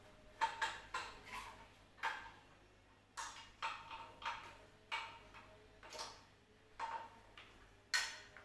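A series of irregular sharp taps or clicks, about a dozen, each ringing briefly, the last near the end being the loudest.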